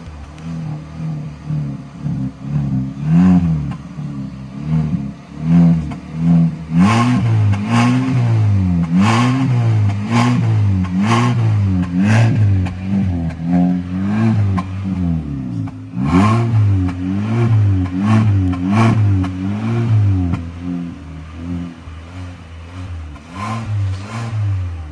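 Hyundai Elantra AD's 2.0-litre four-cylinder engine blipped from idle over and over, about once a second for most of the stretch, heard at the tailpipes. The car has an electronically controlled exhaust cutout valve on an otherwise stock exhaust system, which the owner says leaves the note quiet.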